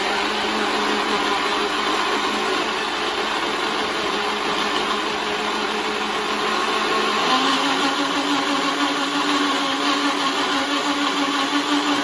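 Countertop jug blender running steadily as it purées a jugful of soup. Its motor note steps up in pitch about seven seconds in.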